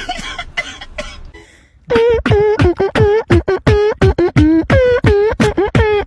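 Comedy sound effect: a hissing, crackling burst that fades out over about a second and a half, then a quick run of about fifteen short, high, voice-like notes, each dipping and rising in pitch, about four a second.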